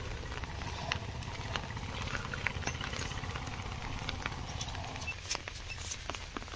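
Outdoor ambience: a steady low rumble with scattered light taps and clicks. The rumble eases about five seconds in.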